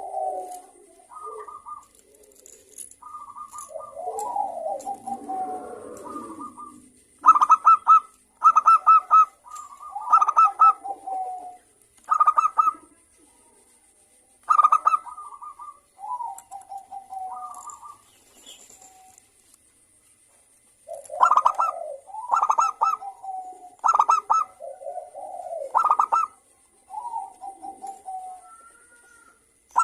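Zebra dove (perkutut) cooing: repeated phrases of sharp, ringing notes each followed by a lower rolling coo, in two bouts with a pause of a few seconds between.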